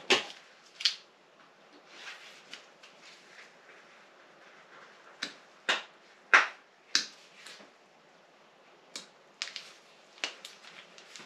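Scattered sharp clicks and taps, about eight at irregular intervals and the loudest about six seconds in, with faint rustling between them: Wolfcraft polishing accessories and their packaging being handled.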